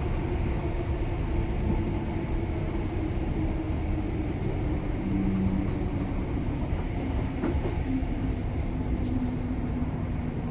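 Class 317 electric multiple unit under way, heard from inside the carriage: a steady rumble of wheels on the track with a low hum.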